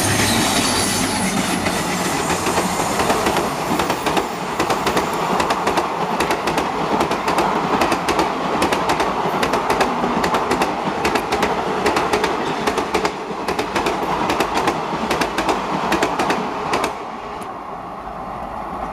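Indian Railways diesel-hauled express train passing close at speed. The locomotive goes by first, then a long run of coaches with fast, rhythmic wheel clatter over the rail joints. The sound drops off suddenly near the end as the last coach clears.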